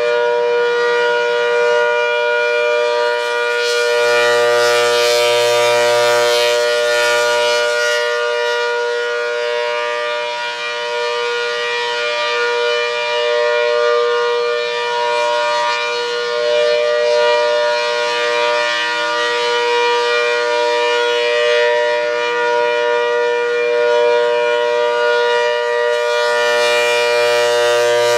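ACA Hurricane 130 rotating 8/10-port tornado siren sounding a steady alert signal, a held two-tone chord, which sounds healthy. The sound swells fuller and brighter about four seconds in and again near the end as the rotating horn sweeps round toward the listener.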